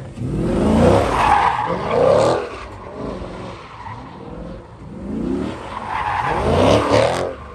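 Muscle car doing a donut burnout: the engine revs up and falls back in repeated surges, with the tyres screeching as they spin. The revs peak about a second in and again near the end.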